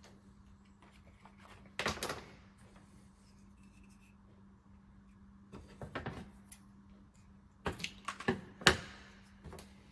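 Workbench handling noises as black plastic wire loom and wires are picked up and moved about: three spells of short knocks and rustles, about two seconds in, around six seconds, and a busier run near the end with the loudest knock. A faint steady low hum lies underneath.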